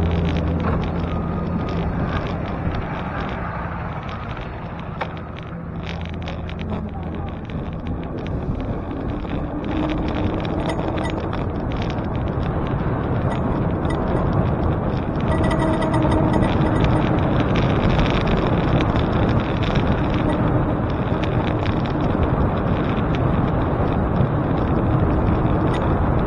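Steady wind and road rush from a moving bicycle in city traffic. A nearby motor vehicle's low engine hum fades out in the first few seconds. The rush grows louder about a third of the way in and then holds.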